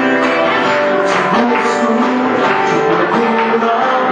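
Live gospel band playing loud, steady music, with guitar.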